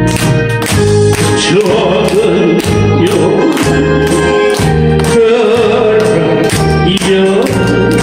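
A man singing a Korean song with a wavering vibrato into a handheld microphone, amplified over a karaoke backing track with a steady beat.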